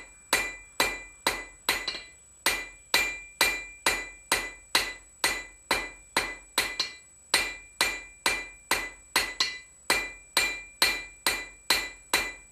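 Hand hammer striking a red-hot bar on an anvil, drawing out a taper: steady ringing blows about twice a second.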